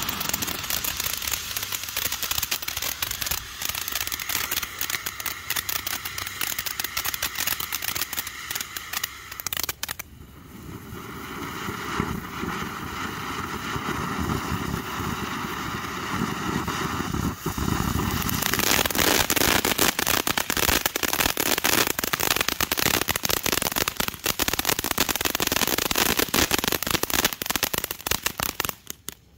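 Ground fountain firework (Legend Fireworks Neon Fountain) spraying sparks with dense crackling. There is a short lull about ten seconds in, then a smoother hiss, then loud crackling again from about eighteen seconds until it cuts off suddenly as the fountain burns out at the very end.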